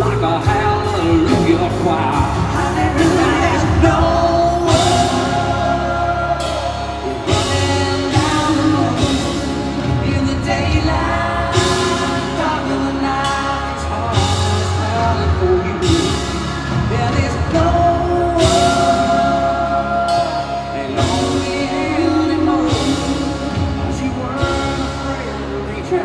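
Live country-rock band playing a song, with a man singing lead over a strummed acoustic guitar and drums.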